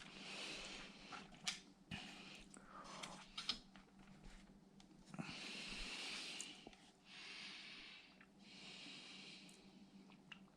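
A person breathing close to the microphone, several slow breaths in and out, with a few faint clicks of small parts being handled.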